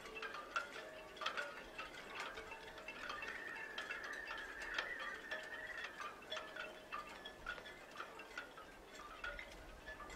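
Faint wind chimes tinkling, with many light, irregular strikes and a longer ringing tone held in the middle.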